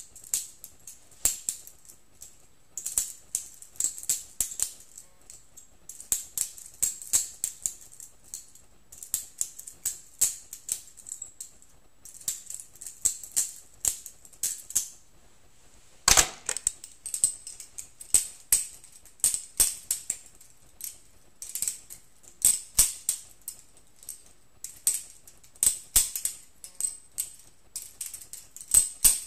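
Balisong (butterfly knife) being flipped, its metal handles clicking and clacking against each other in quick clusters, with a louder clack about sixteen seconds in.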